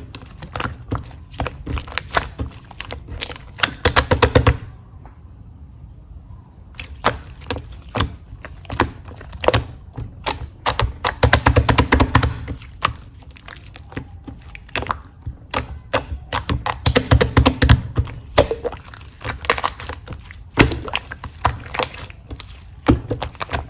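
Marbling slime being squeezed and pressed by hand, giving runs of rapid crackling clicks and pops as air pockets burst. There is a short lull a few seconds in.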